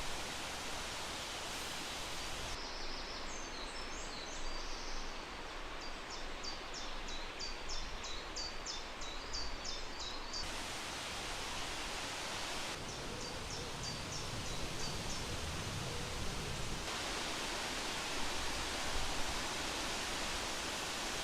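Steady, even outdoor hiss of wind and open countryside. Over it a small songbird sings two runs of high, quick, repeated notes, the first lasting several seconds and the second shorter.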